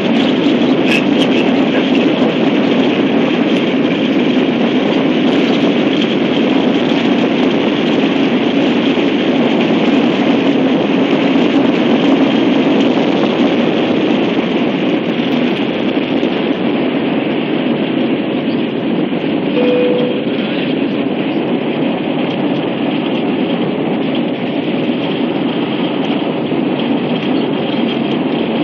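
Jet airliner's engines at takeoff thrust, heard from inside the cabin during the takeoff roll and climb-out: a loud, steady noise that eases slightly about two-thirds through.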